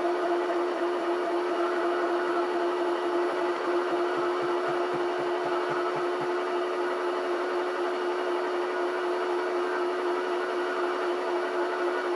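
NGF-110 desktop milling machine running steadily with an electric-motor hum, driving a slotting head that cuts the internal teeth of a steel coupling. A short run of faint low knocks comes near the middle.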